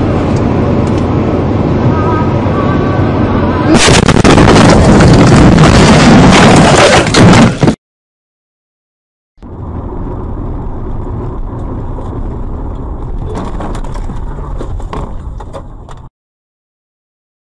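Dashcam audio of a car at highway speed: steady road and engine noise that turns into a much louder, distorted rush of noise about four seconds in, as the night-time clip ends in a crash. After a short silence, a second dashcam crash clip brings steady road noise with a scatter of sharp clicks and knocks in its middle.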